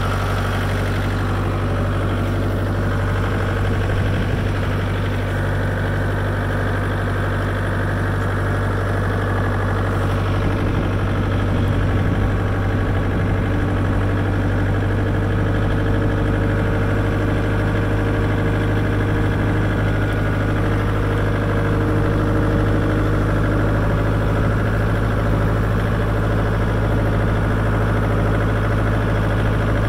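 Ferrari Cromo K60 AR Rev compact tractor's diesel engine running steadily, heard up close from the driver's seat.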